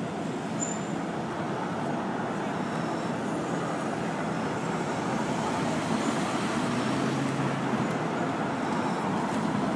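Steady city street noise with traffic, an even rumble and hiss that rises slightly in level.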